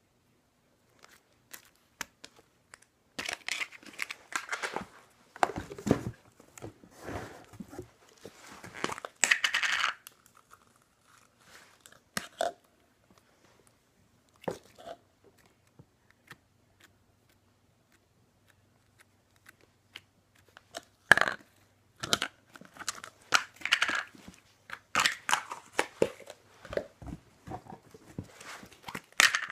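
Slime being stretched and poked by hand, giving irregular small pops and clicks in two stretches, with a quieter spell in between.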